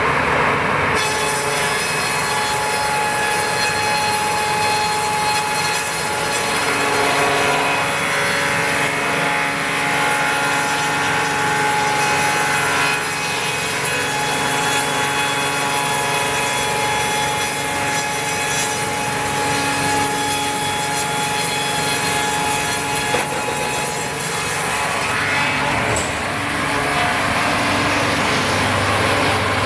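Combined cant saw and multi-rip circular saw machine running and cutting wood: a steady mix of sawing noise and several held blade tones, with small swells but no breaks.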